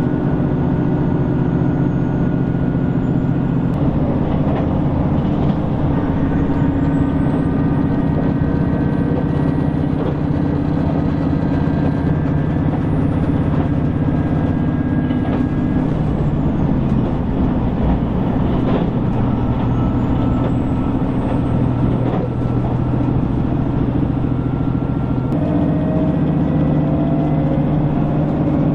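Steady diesel engine drone and running noise heard inside a JR Shikoku 2000 series tilting diesel railcar under way. The engine note shifts a few times.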